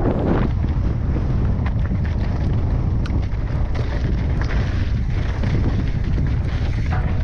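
Wind buffeting the microphone of a helmet-mounted camera as a mountain bike rolls downhill over dirt and rock. Under the wind run tyre noise and a few faint clicks and rattles from the bike.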